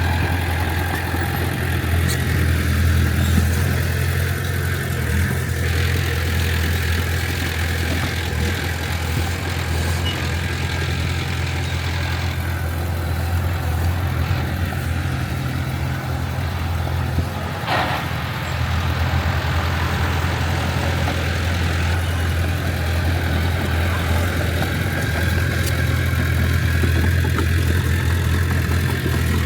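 Diesel engine of heavy earthmoving machinery running steadily with a deep low drone, with one short sharp knock about eighteen seconds in.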